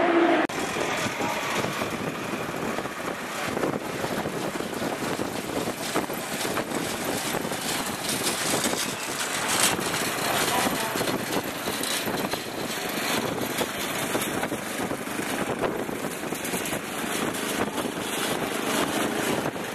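Steady outdoor vehicle engine noise with a rough hiss and no single engine standing out. It comes in with a sudden change about half a second in.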